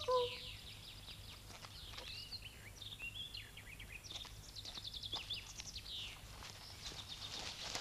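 Small songbirds chirping, a steady scatter of quick high calls and short trills, with a few faint clicks.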